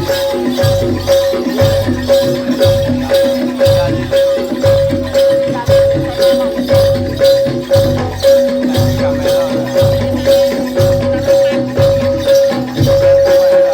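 Live gamelan music accompanying a jaranan dance: drums beat a steady, driving rhythm under a ringing metallophone note that repeats over and over, with jingling percussion on top.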